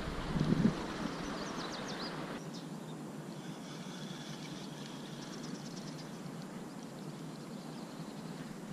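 Quiet outdoor lakeside ambience: a steady faint hiss of open air, with a few faint, short, high chirps now and then and a brief low bump in the first second.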